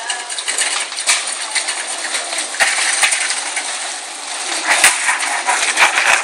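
Loaded wire shopping cart pushed fast over a concrete floor: the wheels rolling and the metal basket rattling and clinking, with a few sharp knocks, loudest near the end.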